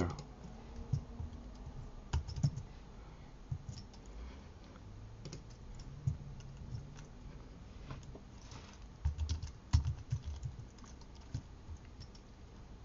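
Typing on a computer keyboard: scattered single keystrokes, with a quick run of keys about nine seconds in.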